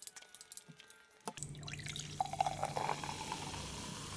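A few light clicks of a spoon on a plate, then, about a second and a half in, Thums Up cola is poured from a plastic bottle into a glass mug. The pour gurgles and fizzes steadily as the glass fills.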